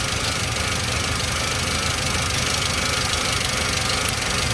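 Toyota Avanza 1300 cc pre-VVT-i four-cylinder engine idling steadily, with the ignition coil shared by cylinders 2 and 3 leaking spark, which causes incomplete combustion in those cylinders.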